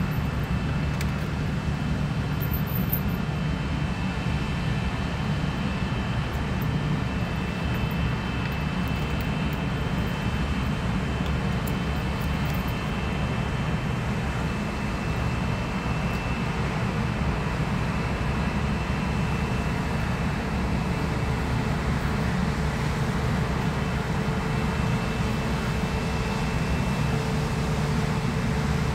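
New Holland combine harvester running steadily while cutting and threshing wheat: an even low engine drone with a faint high whine on top.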